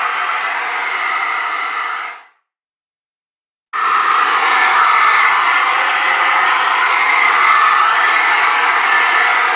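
Hairdryer running with a steady buzzing hum. It fades out about two seconds in, stays silent for about a second and a half, then comes straight back at full strength.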